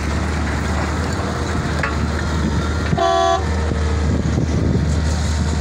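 Caterpillar M318 wheeled excavator's diesel engine running with a steady deep hum as it loads rubble into a dump truck, with stones clattering. A short vehicle horn toot sounds about three seconds in.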